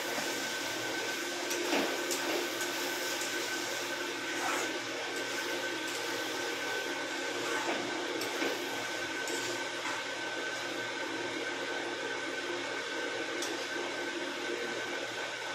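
Brinjal masala frying in a steel kadhai over a gas flame: a steady hiss, with a few light scrapes and knocks of the spatula against the pan.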